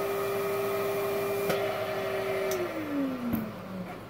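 Small electric blower motor, used to inflate balloons, running with a steady hum. About two and a half seconds in it is switched off and its pitch falls as it spins down. A couple of brief clicks are heard along the way.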